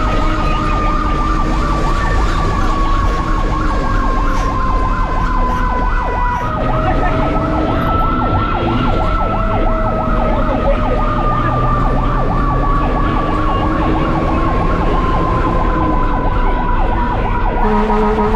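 Fire engine siren wailing, heard from inside the truck's cab. Its pitch slides slowly down, jumps back up about six seconds in and slides down again, over a fast pulsing. A lower, steady horn-like tone comes in just before the end.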